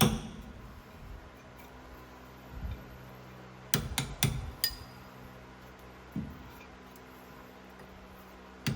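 Hand tools clinking and tapping on metal drum-brake parts: a cluster of four sharp clinks about four seconds in, another knock near six seconds, over a faint steady hum.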